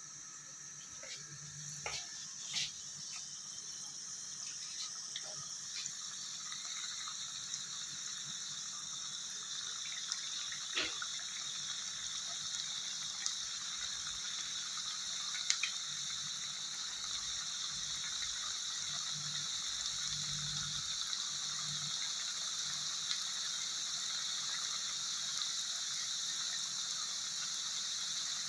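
Potato patties frying in hot oil in a pan: a steady sizzle that grows louder as more patties go in, with a few light clicks in the first half.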